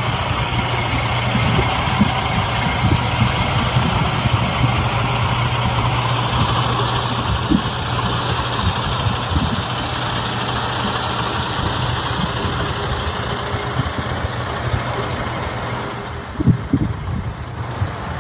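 MAN Lion's Coach diesel engine idling with a steady low hum, growing a little fainter near the end.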